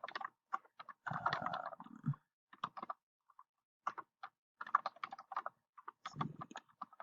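Typing on a computer keyboard: quick runs of keystrokes, with a short pause a little over two seconds in before the typing resumes.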